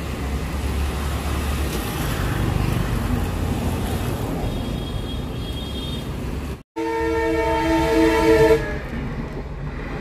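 A steady rush of outdoor noise, then after a brief dropout a train horn sounds for about two seconds, a chord of several steady tones, followed by the rumbling of the train passing.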